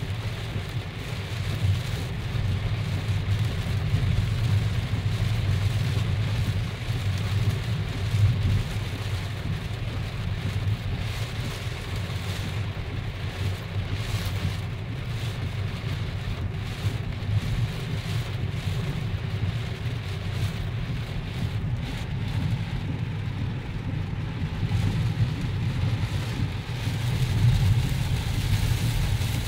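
Heavy rain falling on a moving car's windshield and body, heard inside the cabin over a steady low rumble of road and engine.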